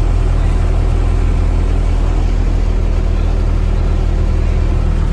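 Mitsubishi bus's diesel engine running steadily with a deep, even hum, heard from the passenger cabin where the engine sits under an in-cabin cover (mesin umplung).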